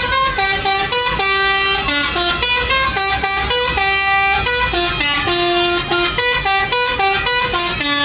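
Garuda Mas bus's telolet multi-tone air horn playing a long melody of quick stepped notes, several a second, with no break, stopping abruptly at the very end.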